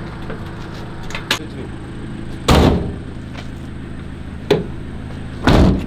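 Cargo van's rear load doors being shut: two loud metal bangs about three seconds apart, with lighter knocks between them, over a steady low hum.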